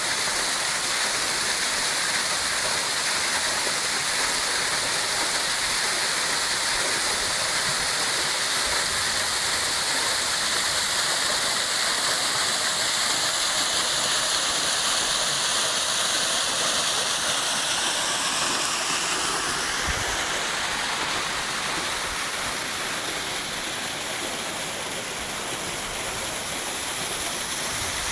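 Steady rush of a mountain waterfall pouring down a rocky gully. Its tone shifts slightly and it gets a little quieter about two-thirds of the way through.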